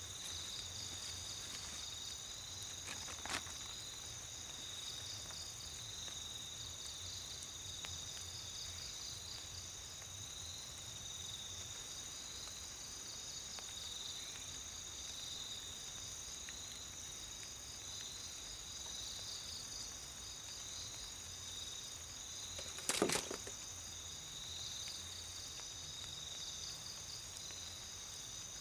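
A steady insect chorus of high, pulsing trills, crickets among them. There is a short sharp knock about three seconds in and a louder thump near the end.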